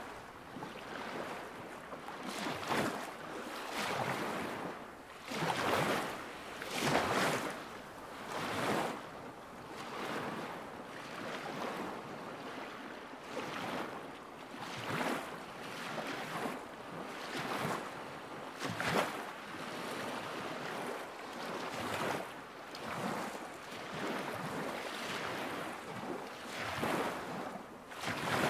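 Small lake waves lapping at the shore, a soft wash every second or two.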